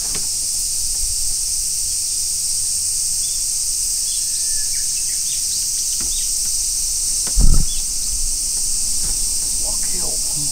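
Steady, high-pitched drone of an insect chorus, with a few faint short chirps in the middle and one loud low thump about seven seconds in.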